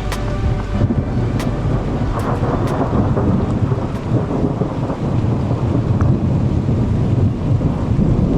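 Thunder rumbling on and on in a lightning storm, with rain falling.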